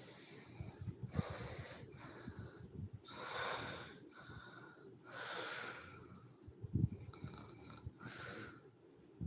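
A sleeping woman snoring, four noisy, wheezy breaths about two to three seconds apart. There is a brief low crackle about seven seconds in.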